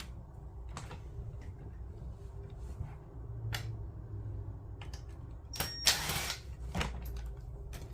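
Light clicks and taps of a screwdriver and small screws as the rear screws are taken out of a DJ controller, with a cluster of louder clicks about six seconds in, over a low background hum.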